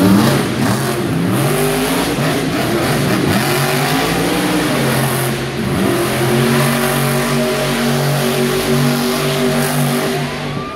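Monster truck's supercharged V8 engine revving hard, its pitch repeatedly rising and falling. It drops away near the end.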